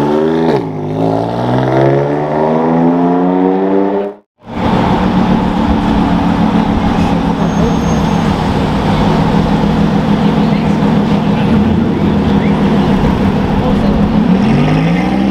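BMW M4 CS accelerating, its engine note climbing steadily through the revs for about four seconds before stopping abruptly. Then a Lamborghini Huracán's V10 runs at a steady low-rev drone for about ten seconds, its revs starting to climb near the end.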